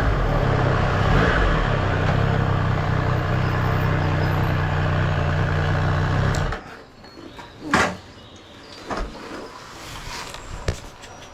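Triumph Street Triple R's inline three-cylinder engine running steadily, then its sound stops abruptly about six and a half seconds in, leaving a quiet background with a few short clicks or knocks.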